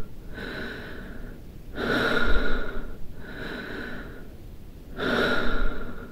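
A person breathing slowly and heavily in and out, with a thin whistling wheeze in every breath. There are louder breaths about two seconds in and about five seconds in, and softer ones between.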